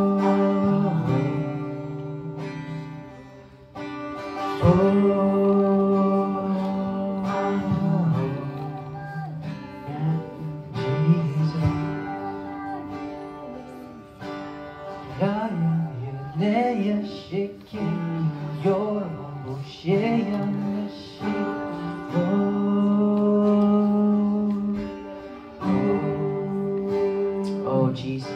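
Slow, soft worship music: sustained chords with guitar, and a melody line in the middle that bends and wavers in pitch, like a wordless voice or a bowed string.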